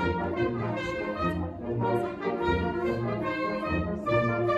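Live symphony orchestra playing, with brass to the fore. Sustained chords sound over a low bass line of separate notes.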